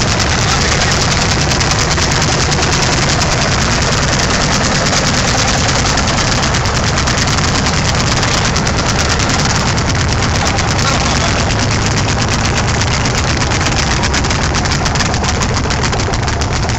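Vintage Landini tractor engine running steadily under load while pulling a plough, its exhaust beating in a fast, even pulse.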